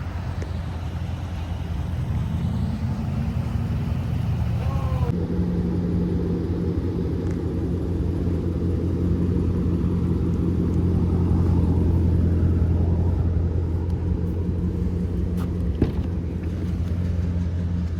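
Car engine running at a steady low drone with road rumble, its tone shifting abruptly about five seconds in, with a single sharp click near the end.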